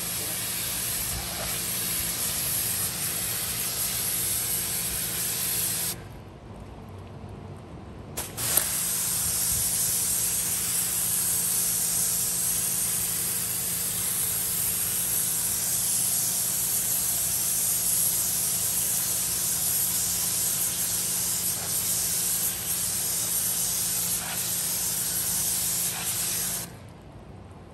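Pressure washer jet spraying a carpeted minivan floor mat: a steady hiss with a low hum underneath. The spray stops for about two seconds around six seconds in, starts again with a sharp burst, and cuts off suddenly just before the end.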